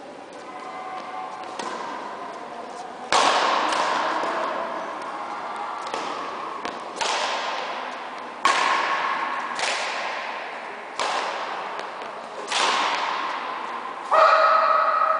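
A badminton rally: about nine sharp racket strikes on the shuttlecock, roughly one every second to second and a half, each ringing on in a large hall's echo. The last and loudest strike, near the end, is followed by a brief pitched tone.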